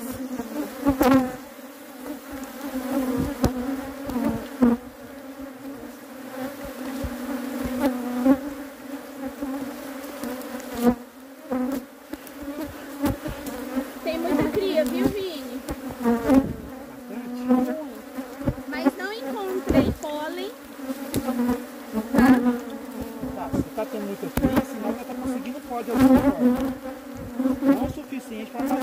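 Honey bees buzzing in large numbers around an open hive: a steady, dense hum, with the pitch bending up and down here and there as single bees fly close. Frequent sharp knocks and clicks run through it.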